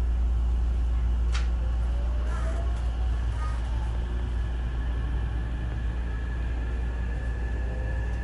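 Running sound inside a Hankyu 9000 series electric train: a steady low rumble of wheels on rail, with the whine of its Toshiba IGBT VVVF inverter and traction motors rising slowly in pitch from about two seconds in as the train picks up speed. A single sharp click comes about a second in.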